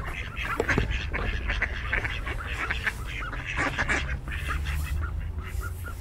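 A flock of mallards quacking, many short calls overlapping in a busy run that thins out near the end.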